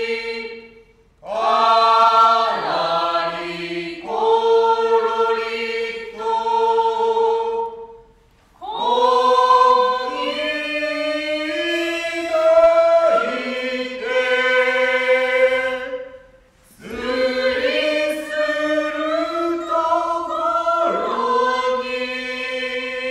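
Kyogen chant sung in unison by a group of voices, with long, drawn-out held notes in phrases broken by short pauses.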